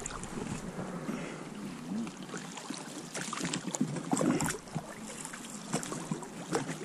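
Inflatable PVC boat being rowed down a small river: oars dipping and pulling through the water, with irregular splashes and small knocks over a steady water hiss.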